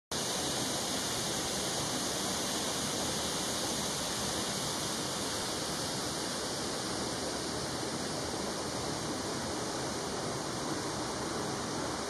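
Steady rushing of falling water from a waterfall out of sight, an even hiss with no breaks or changes.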